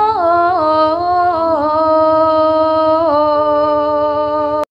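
A Javanese sinden, a female gamelan singer, sings a slow, ornamented vocal line into a microphone, sliding between long held notes, over steady held tones from the accompaniment. The sound breaks off suddenly at the very end.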